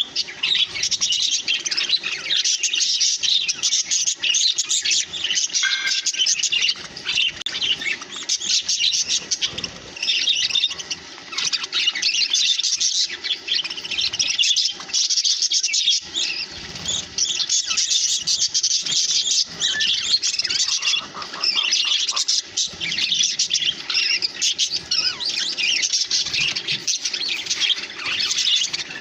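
Several budgerigars chirping and chattering together in a dense, continuous warble.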